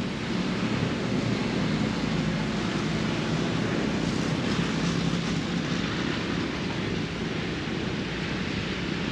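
Steady wind rushing over the microphone, an even outdoor noise with no distinct clicks.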